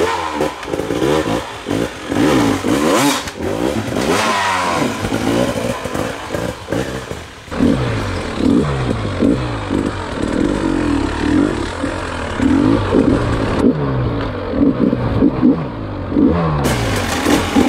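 Off-road dirt bike engine revving up and easing off again and again, its pitch rising and falling in quick rapid cycles, with a few sharp knocks.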